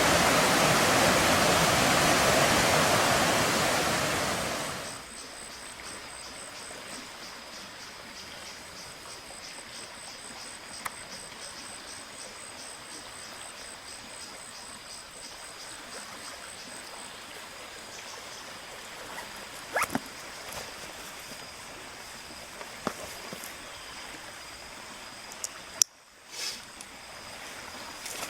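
Loud rushing river water for about five seconds, then a sudden drop to a much quieter flow. Over the quieter flow runs a faint steady high thin tone and a few light clicks.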